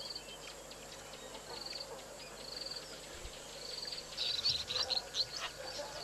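White-faced whistling ducks giving a quick run of high, sharp whistles from about four seconds in. Short buzzing trills repeat in the background.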